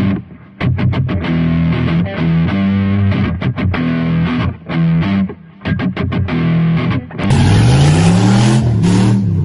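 Music: a distorted electric guitar playing a riff of short, choppy notes, with a longer stretch of bending pitches near the end.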